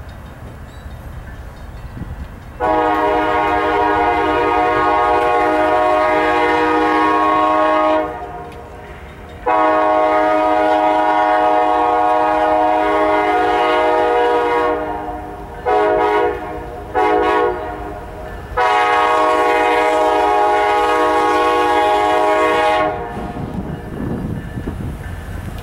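Kansas City Southern diesel locomotive's air horn blowing for a road grade crossing as the train approaches: two long blasts, two short ones, then a final long blast. A low rumble from the oncoming train runs underneath and grows louder near the end.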